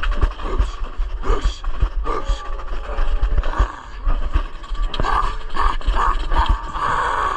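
Hard breathing close to the microphone, with scraping and knocking from movement, as if from a body-worn camera.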